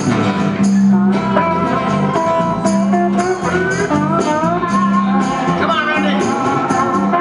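A small live band playing: acoustic and electric guitars over hand drums, with a lead melody line that bends and slides in pitch.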